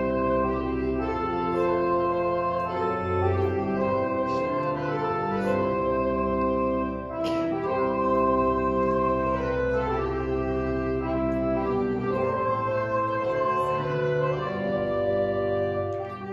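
Organ playing a hymn tune instrumentally in slow, held chords that change about once a second.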